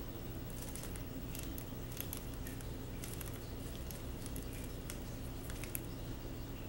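Budgerigar pecking and nibbling at a cloth sock and stepping on a wooden floor: scattered small clicks and scratchy taps in short clusters, over a faint low steady hum.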